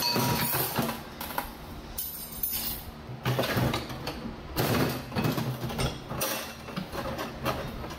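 Steel TH350 transmission parts, a clutch drum and clutch pack pieces, clattering and scraping against each other and a steel cart top as they are handled and taken apart. The knocks and scrapes are irregular.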